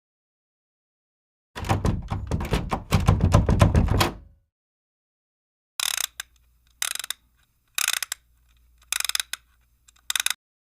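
Mechanical clattering: a dense run of rapid clicks and knocks lasting about three seconds, then five short bursts of rapid clicks about a second apart.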